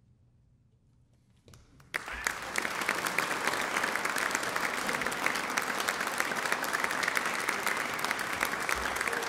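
A hush of about two seconds after the music ends, then the audience breaks into applause: dense, steady clapping that keeps going.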